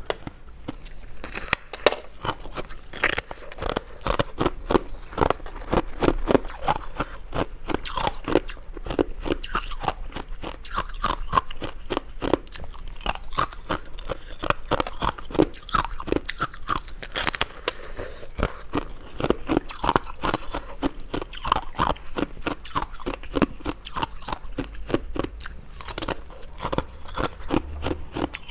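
Ice being bitten and chewed: crisp crunches, several a second, one after another.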